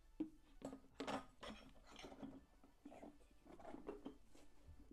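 Faint, uneven cutting and scraping strokes: the too-small opening of a new air filter being widened by hand.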